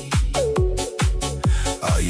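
Electronic dance music with a steady kick-drum beat, about two beats a second, under held synth notes.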